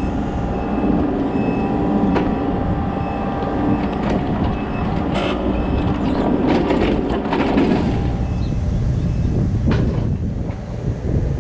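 Kobelco SK35SR mini excavator's diesel engine running steadily under working load, with sharp cracks and knocks about two seconds in, a cluster of them from about five to seven and a half seconds, and one more near the end.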